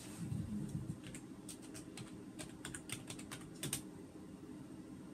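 Fingers typing: a run of quick, light taps in irregular clusters, most of them between about one and four seconds in.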